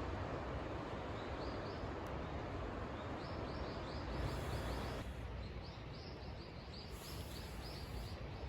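Outdoor ambience: a steady rushing noise, easing a little about five seconds in, with runs of short high chirps repeating several times a second.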